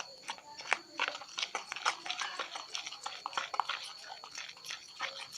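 A spoon stirring thick white-glue slime activated with Tenys Pé foot powder in a container, making a quick, irregular run of sticky clicks and smacks as the mass starts to pull away from the sides.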